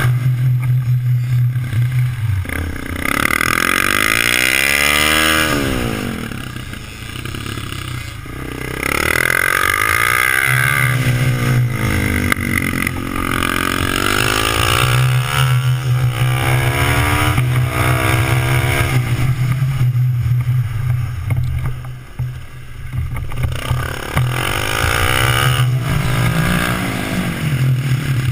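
Suzuki motorcycle engine revving up and down over and over as the bike accelerates and slows through tight turns, its pitch rising and falling every few seconds.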